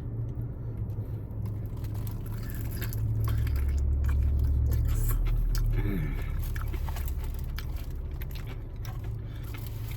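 Close-up chewing and biting into a crispy fried chicken wing, with scattered crunchy clicks. A steady low rumble runs underneath and grows louder in the middle, with a brief hum from the eater about six seconds in.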